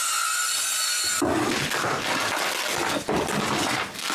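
Power saw running free with a steady whine, then cutting into the wooden floor about a second in, a rough, steady cutting noise with brief dips.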